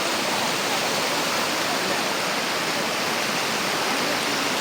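Floodwater rushing through a breach in an earthen river embankment: a loud, steady, unbroken rush of water that is washing out the soil beneath the embankment.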